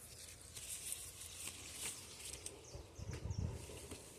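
Faint outdoor ambience with scattered light clicks and a few brief high chirps, and a short low rumble about three seconds in.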